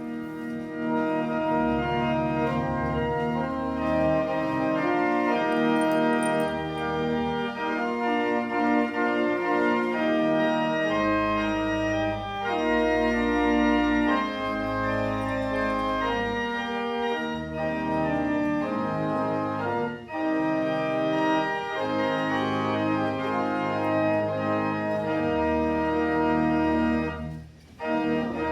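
Church organ playing held chords over a deep pedal bass, the chords changing every second or two, with a short break near the end.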